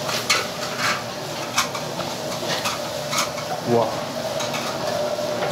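Jjajangmyeon noodles slurped from chopsticks in quick, repeated short bursts, over a steady sizzle from the noodles' hot stone plate.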